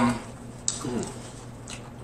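Wet chewing and lip smacks from someone eating fried chicken, with two sharp smacks about a second apart and a short falling hum between them.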